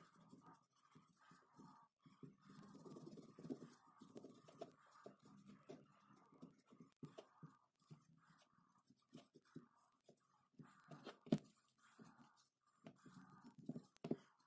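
Faint irregular rubbing and scraping of a rag worked by hand over a painted metal corner clamp, with small knocks of the clamp shifting on the bench mat and one sharper knock about three-quarters of the way through.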